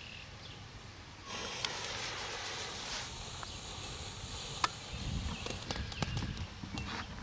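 A lit novelty ground firework (a "Dancing Butterfly") hissing steadily from about a second in, with a few small crackles. It fizzes in place without taking off, a dud.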